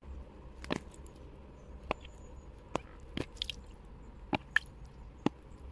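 Silicone pop-it fidget toy bubbles being pressed one at a time: short, soft pops at irregular intervals, about eight in all.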